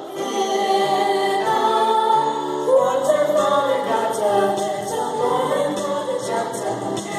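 Song from a stage musical: choral-style singing with long held notes.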